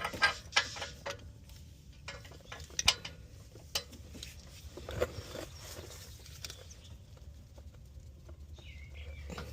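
Scattered metal clicks and knocks from a breaker bar and socket working on an oxygen sensor that is stuck tight in the exhaust, over a low steady hum.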